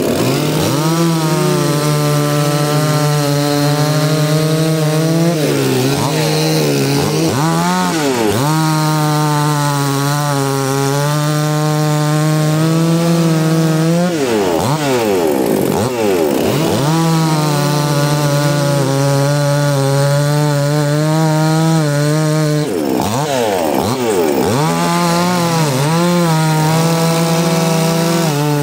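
Two-stroke chainsaw running at high revs while cutting wood. Its engine note holds steady, then briefly drops in pitch and climbs back several times.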